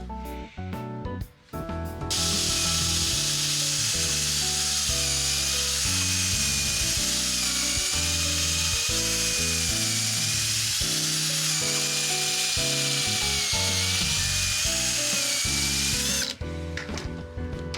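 A small power tool runs steadily for about fourteen seconds: a high whine with a hissing edge whose pitch wavers slightly as it works. It starts about two seconds in and cuts off near the end.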